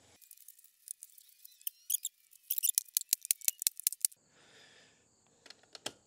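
Faint squeaking and light scraping of a marking tool drawn along 2x12 lumber to mark a 2-inch edge line, then a quick run of about a dozen small clicks, roughly eight a second.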